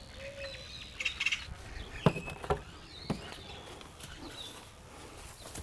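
Faint bird chirps, with three sharp knocks about two, two and a half and three seconds in.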